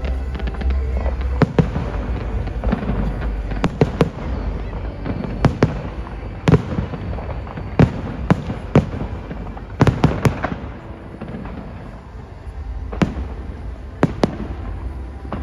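Aerial fireworks shells bursting in a display: about fifteen sharp bangs at irregular spacing over a steady low rumble. Some come in quick pairs and triplets, with a short lull near the end.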